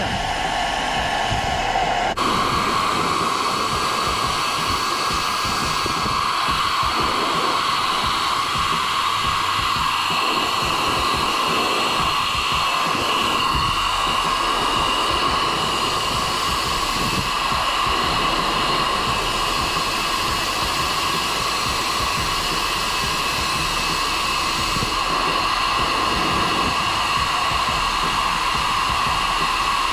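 Philips SenseIQ hair dryer running on its gentle setting, blowing a steady stream of air; its whirr shifts a little higher in pitch about two seconds in, then holds steady.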